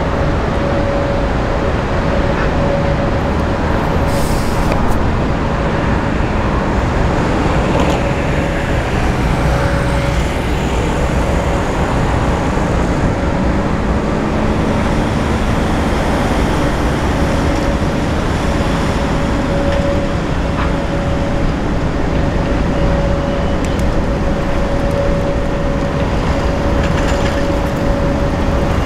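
Steady rumble of a works-railway train running, with a constant thin whine over it.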